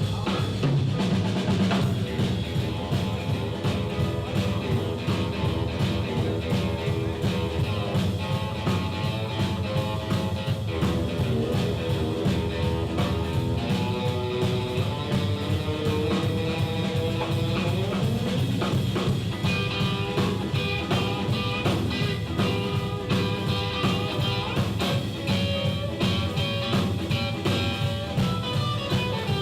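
Live blues band playing an instrumental passage between sung verses: electric guitar lines over a steady drum-kit beat.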